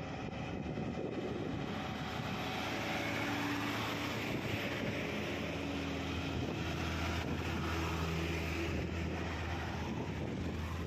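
Heavy Tata Signa diesel trucks passing on a highway: a steady engine drone with tyre and road noise that swells slightly as a truck goes by close. A motorcycle passes near the end.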